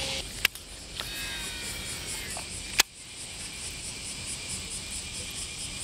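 Insects chirping in a steady, evenly pulsing high trill. Two sharp clicks come about half a second in and near three seconds in, and a faint gliding whistle sounds between them.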